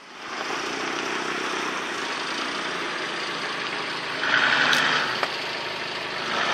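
Toyota Land Cruiser's engine running steadily, with a louder stretch about four seconds in lasting under a second, as the SUV sits stuck nose-down on a muddy bank.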